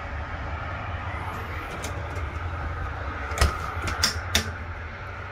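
Travel-trailer refrigerator door being handled and shut: three sharp clicks and knocks, the latch and door closing, about three and a half to four and a half seconds in. A steady low hum runs underneath.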